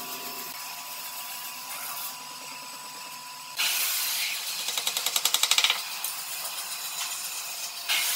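A woodworking power tool running with a steady high whine. For a couple of seconds in the middle it works louder and hissier with a rapid pulsing rhythm, as the tool cuts into the wood.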